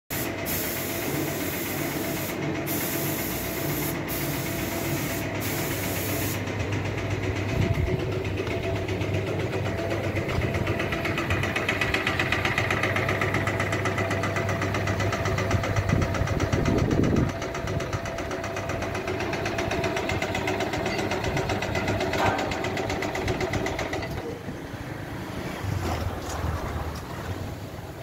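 Electric motor and V-belt drive of a plastic washing machine running steadily, turning the agitator in its steel drum with a constant mechanical hum. A loud high hiss plays over it, breaking off briefly a few times and stopping about six seconds in.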